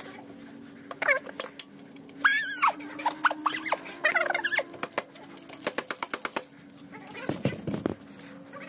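A ratchet wrench working a brake caliper bolt: a few short high squeaks, then a run of ratchet clicks at about six a second for a second and a half, and a low thump near the end, over a faint steady hum.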